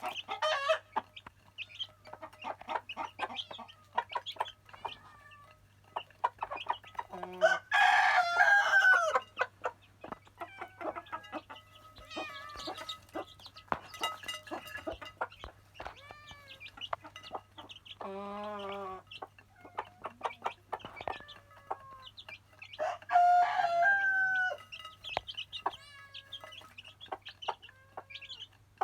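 Chickens clucking throughout, with a rooster crowing loudly twice, once about a third of the way in and again near the end. A single lower, wavering animal call comes about two-thirds of the way through.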